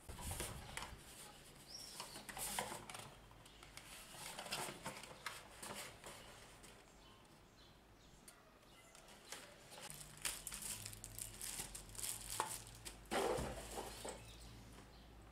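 Packaging being handled and unpacked: irregular rustling and crinkling of plastic and cardboard, with a few small knocks.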